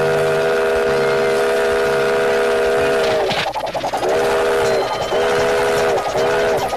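Steam locomotive whistle sounding a chord of several tones: one long blast that ends about three seconds in, then three short blasts, over the rhythmic chuffing and clatter of a moving train.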